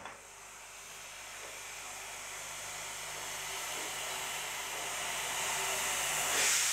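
ČSD class 475.1 steam locomotive hissing steam as it rolls slowly closer, the steady hiss growing louder throughout. A brighter, louder hiss joins near the end.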